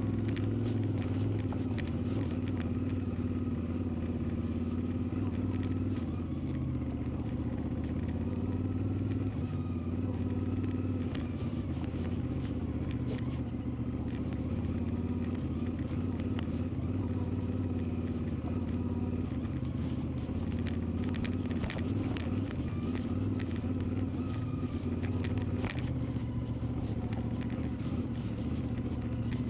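CFMoto 450 MT's 449 cc parallel-twin engine running at a steady, even speed while under way, with scattered light clicks over it.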